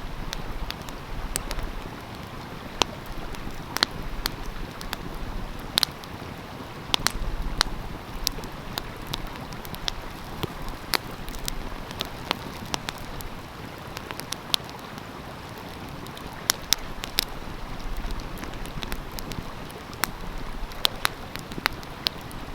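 Wood fire crackling, with irregular sharp pops, over the steady rush of a flowing stream.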